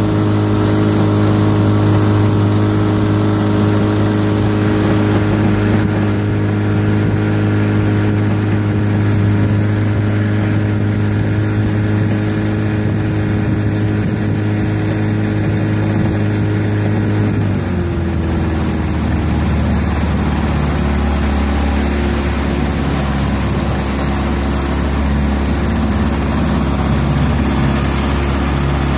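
Motorboat engine running steadily under way, then throttled back about two-thirds of the way through, its note dropping to a lower steady pitch as the boat slows near the shore.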